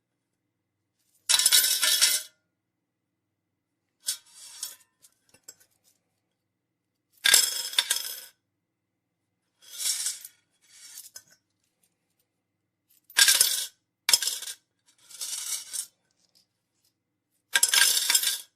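Coins dropping and jingling in about eight separate bursts, each around a second long, with silence between them.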